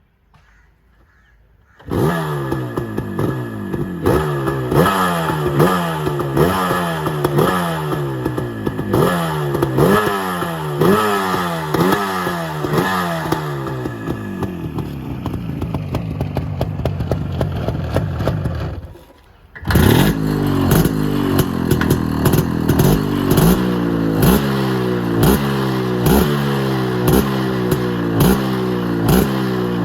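Two-stroke motorcycle engine revved in repeated throttle blips, the pitch rising and dropping back about once a second. It settles and cuts out near 19 s, then a second engine run starts with the same quick blips.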